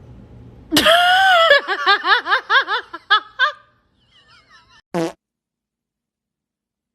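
Fart sound effect: a loud, squeaky pitched blast about a second in that breaks into a rapid string of short rising squeaks. One short blast follows about five seconds in.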